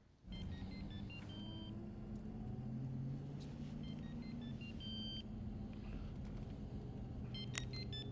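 Cell phone ringing inside a moving car: a short tune of electronic beeps that comes three times, about three and a half seconds apart, over the low hum and rumble of the car's engine and road noise.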